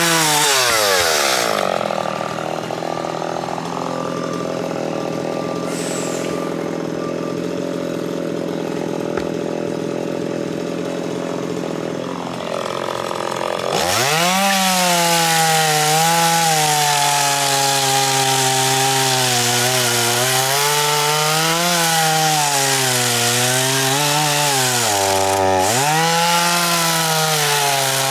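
Stihl MS170 two-stroke chainsaw drops from full revs to idle in the first couple of seconds and idles for about twelve seconds. About halfway through it throttles up sharply and saws into a log, its pitch dipping and recovering as the chain loads in the wood.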